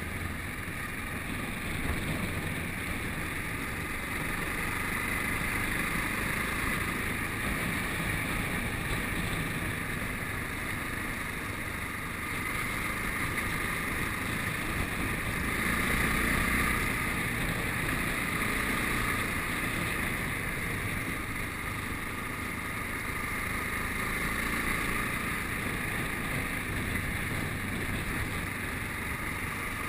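Yamaha Ténéré motorcycle riding at a steady pace, its engine running under a strong rush of wind on the microphone. The sound swells a little about halfway through.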